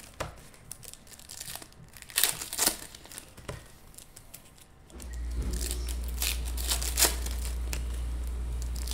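Foil trading-card packs being torn open and crinkled by hand, with cards handled between them, in short irregular crackles several times. About five seconds in a steady low hum starts and carries on.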